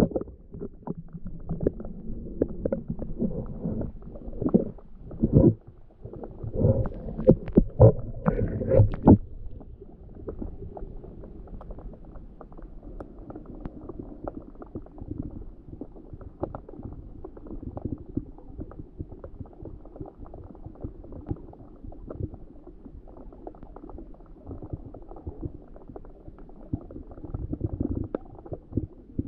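Muffled underwater sound from a camera in a waterproof housing held below the sea surface: low rumbling and moving water. A run of louder knocks and surges comes in the first nine seconds, then a softer, steadier rumble with faint crackle.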